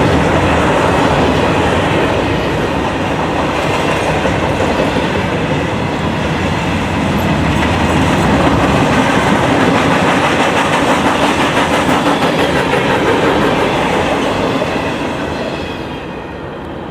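Norfolk Southern freight cars rolling past, steel wheels clattering over the rail joints in a steady rumble. The sound fades about a second before the end.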